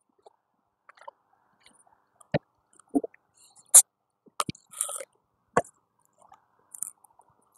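About half a dozen scattered, sharp clicks and knocks from a hand working the fasteners on the sheet-metal filter access panel of a Lennox rooftop package unit as it is opened.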